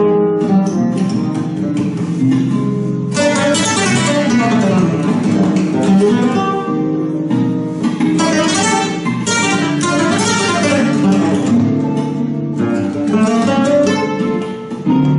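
Flamenco guitar playing: quick plucked runs mixed with strummed chords.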